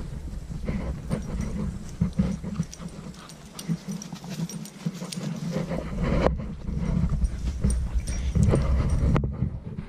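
Footsteps and rubbing handling noise from a body-worn camera as its wearer walks across dry grass and then onto concrete, with a dog close by.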